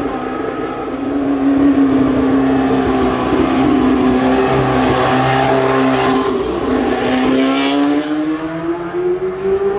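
Ford Cosworth DFV 3.0-litre V8 of a historic Formula One car running at a steady, low-rpm note, as at pit-lane speed. In the last few seconds it revs up, the pitch rising as the car accelerates.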